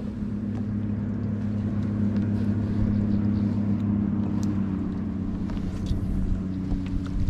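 A motor running steadily with a low, even hum, growing a little louder over the first two or three seconds and then holding; a few faint ticks sound above it.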